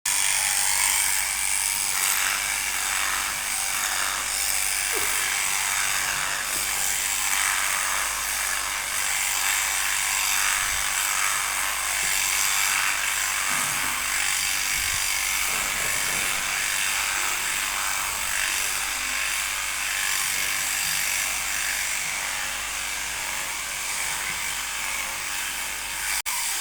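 Takumi 900 electric sheep-shearing machine running steadily, a high, even buzz that starts suddenly and holds throughout.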